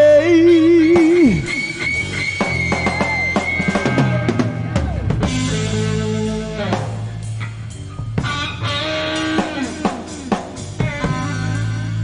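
Rock music, an instrumental passage: drum kit and bass under a lead guitar playing bent notes with vibrato, including one long held high note.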